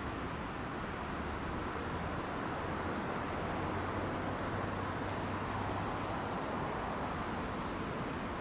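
Steady city traffic noise: an unbroken wash of cars on a busy street, with a low hum underneath.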